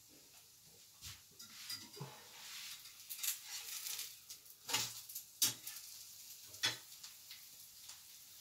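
A spatula scraping and knocking against a frying pan and plate while a pancake is turned and lifted out. About half a dozen sharp clinks, with scraping between them in the first half.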